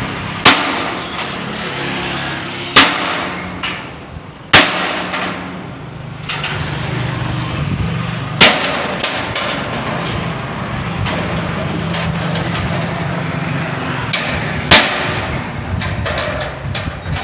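Hammer striking the steel fittings of a rolling shutter being installed: about five sharp, loud metal blows a few seconds apart, with a few lighter knocks near the end.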